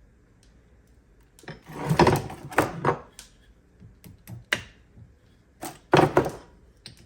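Sharp metal knocks and clacks as a U-joint bearing cap and its keeper clip are worked into a prop shaft yoke: a quick cluster about two seconds in, single knocks after that, and another strong pair near the end.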